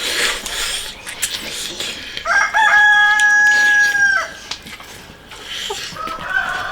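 A rooster crowing: one long, level crow of about two seconds, with a second crow starting near the end.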